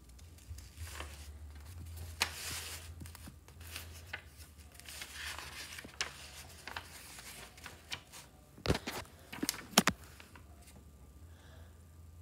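Paper pages of a folded, hand-made booklet rustling and crinkling as they are handled and turned, with a few sharp clicks about nine seconds in.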